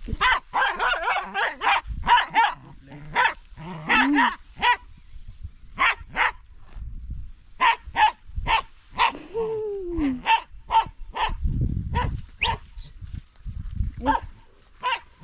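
A dog barking repeatedly in short, sharp barks at an uneven pace, with one longer call falling in pitch about nine and a half seconds in.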